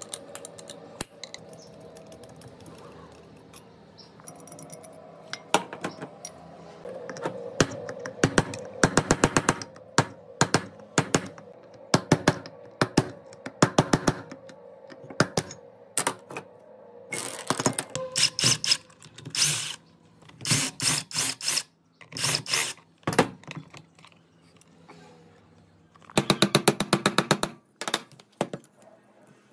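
Hand tools clicking and tapping on metal parts: scattered sharp knocks, with quick rapid runs of clicks about eight seconds in and again near the end.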